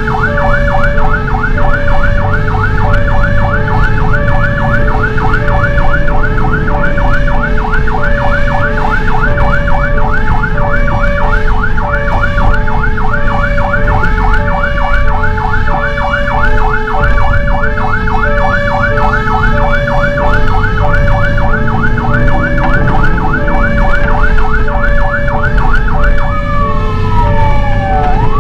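Fire engine responding with sirens: an electronic siren in a fast yelp alongside a second siren alternating between two tones, over the truck's engine. Near the end the yelp switches to a slow wail, falling and then rising.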